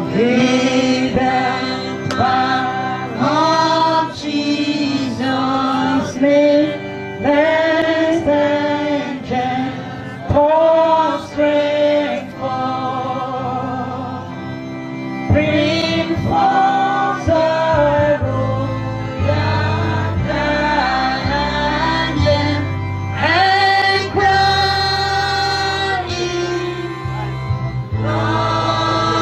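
Women singing a hymn together through microphones, accompanied by an electronic keyboard; the keyboard's bass grows stronger about two-thirds of the way through.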